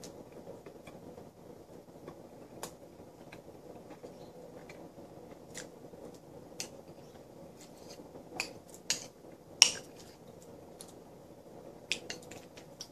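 Metal spoon clicking and scraping against a bowl while eating, scattered sharp clinks with a louder cluster a little after eight seconds in and again near the end, over a faint steady hum.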